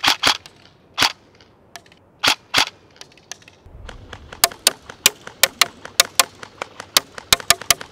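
Airsoft MK18 rifle firing single shots, each a short sharp crack: a few spaced shots, then a quicker string of about four to five a second heard from beside the target at 50 m.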